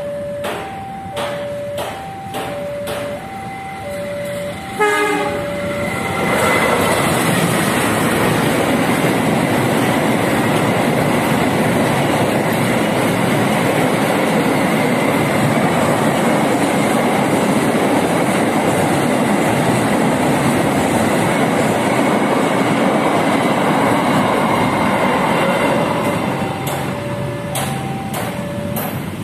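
A level-crossing warning alarm sounds in two alternating tones, and about five seconds in a diesel locomotive horn gives a short blast. A CC 201 diesel-electric locomotive hauling a long container freight train then passes close by, its engine and wheels on the rails making a steady loud noise for about twenty seconds. Near the end the train noise fades and the crossing alarm's two tones come back.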